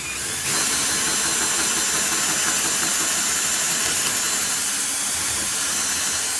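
Power drill running steadily as it bores the first cut through the plastic air box, with a bit so dull that the cut goes slowly. It comes up to full speed about half a second in.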